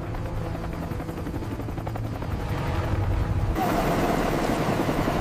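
Helicopter rotor and engine running, a steady low throb. About three and a half seconds in, a louder, rougher rushing noise with a wavering tone joins it.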